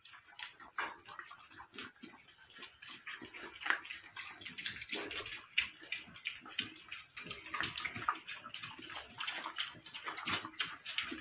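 Piglets eating feed pellets, a dense, irregular run of crunching and smacking from their chewing snouts.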